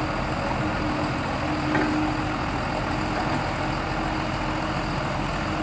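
Heavy diesel engine running steadily, with a faint steady tone over it in the first couple of seconds.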